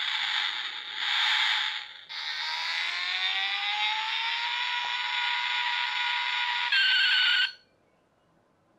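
Battery toy racing car running, its sound mostly high: a hissing rush for about two seconds, then a whine of several tones that rises and levels off like an engine revving. It changes briefly and cuts off suddenly about seven and a half seconds in.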